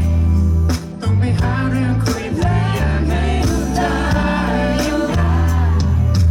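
Live band music at full volume: a heavy bass line and drums under a sung vocal line.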